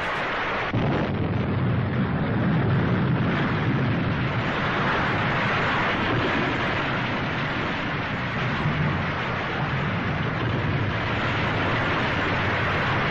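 Continuous loud rumbling of an ice-shelf edge calving and collapsing into the sea, a dense noisy roar that grows a little louder under a second in.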